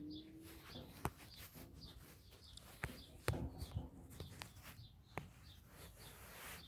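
Faint birds chirping again and again, with a few scattered clicks and knocks, the loudest a little over three seconds in.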